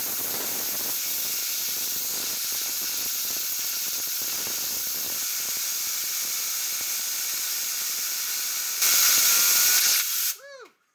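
Compressed-air blow gun hissing steadily as its jet spins an apple in a cupped hand. The hiss jumps louder for about the last second before it cuts off.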